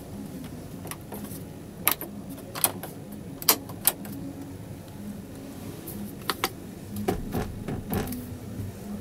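Dashboard switches and buttons in a MAN TGS truck cab being pressed: a string of short, sharp clicks at irregular intervals, some in quick pairs, over a steady low background hum.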